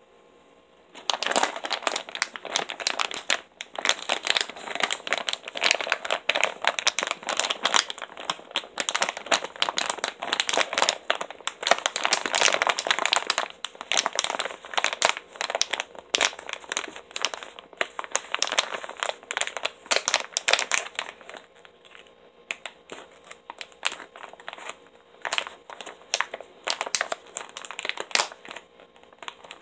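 Silver foil packaging bag crinkling and crackling as it is handled and opened. The crinkling starts about a second in, is dense for most of the time, and turns sparser and more intermittent in the last third.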